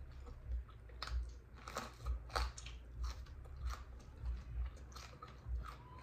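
A person chewing a mouthful of barbecued pork spare rib meat close to the microphone, in a steady rhythm of a little under two chews a second.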